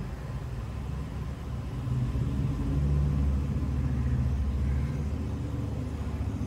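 A steady low rumble that grows louder about two seconds in and stays up.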